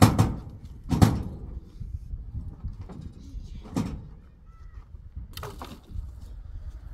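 Heavy wooden knocks at uneven intervals, the loudest at the start and about a second in, then near four seconds and a cluster around five and a half seconds: blows on timber from a hand tool.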